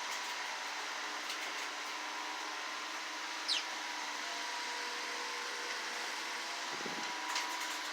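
Steady fan-like hiss with a faint hum, with one brief high falling chirp about three and a half seconds in.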